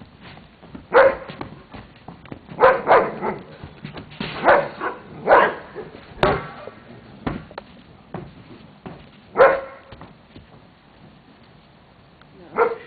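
A dog barking: short, sharp barks at irregular intervals, some in quick pairs, with a longer pause before the last ones.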